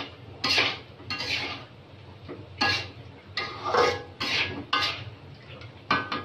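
Metal spatula scraping and knocking against a metal karahi, with irregular strokes about once a second, while chicken and chana dal are stirred and fried together.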